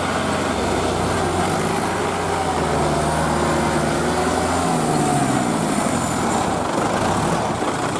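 Tractor engine running steadily, its pitch rising and falling for a few seconds around the middle as it works.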